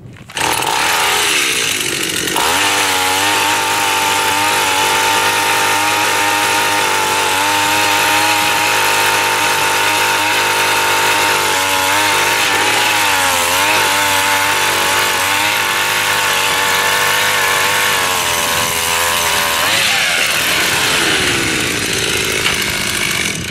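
Gas-powered ice auger engine revving up about two seconds in and running at high speed as the auger bores through the lake ice, with brief dips in pitch under load around the middle. It eases back down near the end as the bit is lifted out of the hole.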